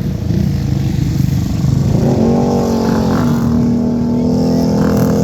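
ATV engine running over a constant low rumble, revving up about two seconds in and holding a steady high pitch.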